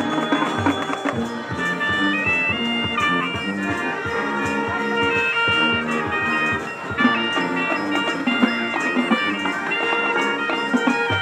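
High school marching band playing a jazz-style arrangement: brass and woodwinds holding sustained chords over steady drum hits.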